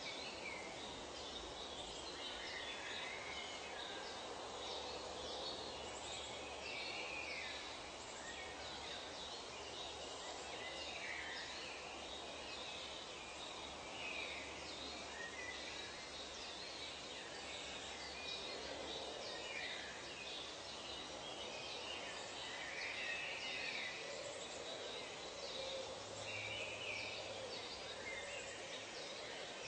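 Nature ambience of many birds calling: short chirps and calls come one after another throughout, over a steady background hiss.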